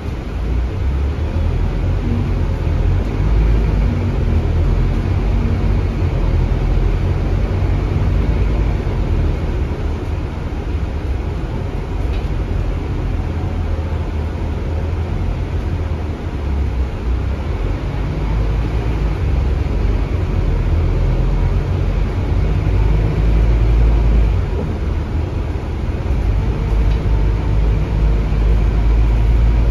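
Cabin sound of a Scania K320UB city bus running, with a steady low rumble from its Scania DC9 diesel engine and drivetrain that swells and eases a little.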